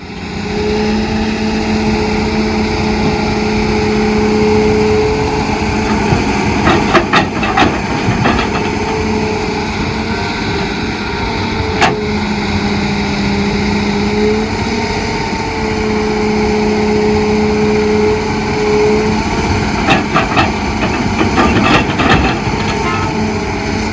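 Excavator diesel engine running with a steady drone whose pitch dips and recovers as the hydraulics take load. Bursts of clanking and knocks come about seven seconds in, once near twelve seconds, and again around twenty to twenty-two seconds.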